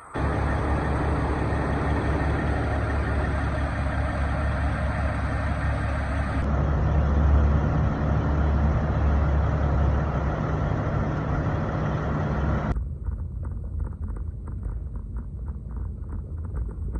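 Peterbilt semi truck's diesel engine idling up close, a steady low rumble with a hiss over it. Near the end it gives way to the quieter low drone of a truck cab rolling down the road.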